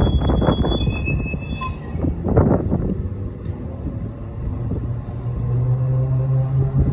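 Low rumble of a motor vehicle engine running, with a steady hum that grows stronger in the second half.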